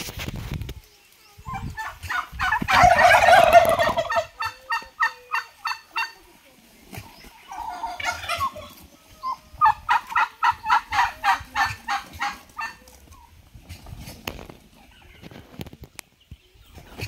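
Domestic turkeys gobbling in two long bouts of rapid, rattling pulses, about four to five a second, each bout opening with a louder, denser burst.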